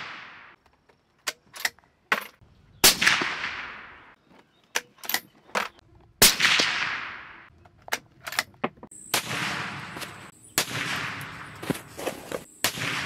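Several shots from a suppressed bolt-action .308 Winchester rifle (a Ruger American Standard with a SilencerCo Hybrid 46 suppressor), each a sharp report trailing off in a long echo. Small metallic clicks of the bolt being worked come between the shots.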